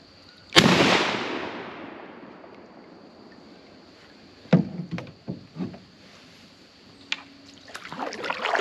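A single shotgun shot about half a second in, its echo dying away over about two seconds. It is followed by a few sharp knocks about four and a half seconds in, and a rustling swish near the end.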